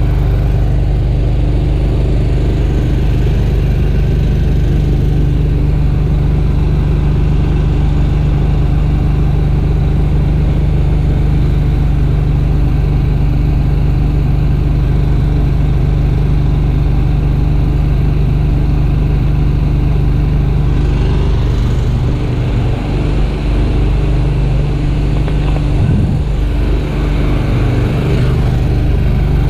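An engine idling steadily, a loud low drone with a steady hum above it. The drone wavers for a few seconds past the middle and then settles again.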